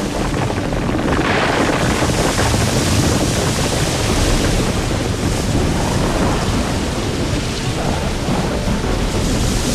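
Loud, steady rumbling noise with a heavy low end and no distinct separate events.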